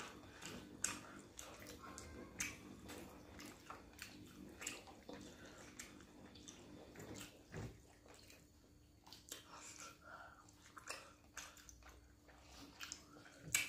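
Close-up eating sounds of pounded yam and tomato pepper soup eaten by hand: scattered wet chewing, lip smacks and small clicks at an irregular pace, fairly quiet, over a faint steady hum.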